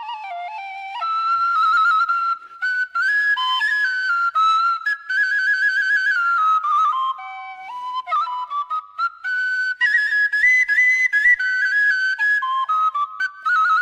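Solo Khmer bamboo flute playing a high melody of Cambodian classical music, stepping between held notes with quick trills and wavering ornaments, broken by short pauses for breath.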